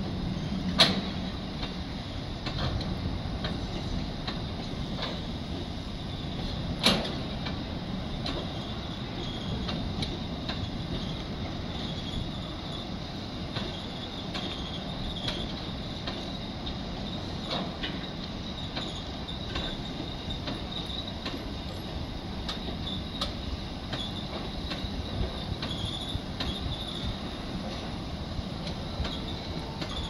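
Empty BLCS container flat wagons of a freight train rolling past: a steady rumble of steel wheels on rails with frequent clicks over the rail joints, and two sharp bangs, one about a second in and one near seven seconds.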